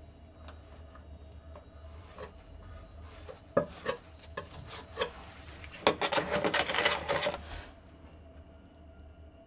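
A metal spreading knife scrapes and taps as epoxy is spread on a backing plate. About six seconds in comes a louder stretch of scraping and rubbing that lasts about a second and a half.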